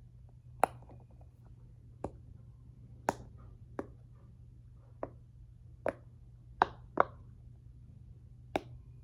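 A fidget toy clicking under the fingers: nine sharp, separate clicks at uneven intervals, roughly a second apart.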